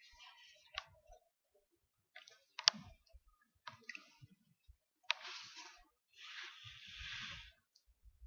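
Faint scattered clicks and soft rustling from a puppy nosing about right at the laptop microphone while being petted.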